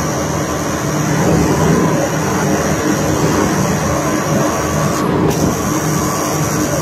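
Heavy diesel unloading machinery running steadily under load, with a low engine hum and a thin high whine that drops out briefly about five seconds in.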